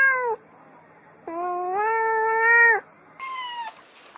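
Cats meowing: the end of one meow at the start, a long drawn-out meow of about a second and a half, then a short, higher-pitched meow near the end.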